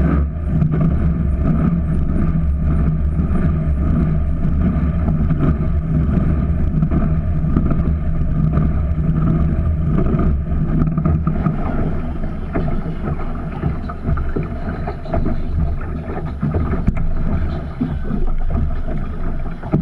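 Big-cubic-inch aluminum jet-boat engine running at low speed, a steady low engine note with water wash and some wind on the microphone; it eases off slightly about halfway through.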